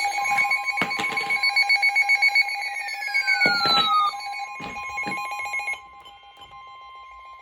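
Emergency alert attention signal: a steady two-tone alarm, with rapid pulsing beeps and falling gliding tones layered over it, and a few sharp clicks. About six seconds in it drops to a quieter steady tone.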